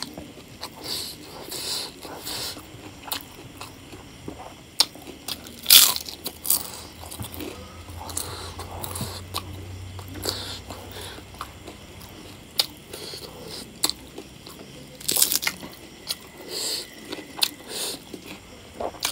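Close-miked crunching of a crisp fried papad wafer as it is snapped, crumbled over rice, bitten and chewed. It is a run of sharp crackly crunches, loudest about six seconds in and again around fifteen seconds in.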